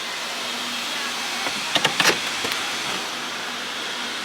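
Steady noise inside a car pulled up at a car wash, with a few sharp clicks about two seconds in.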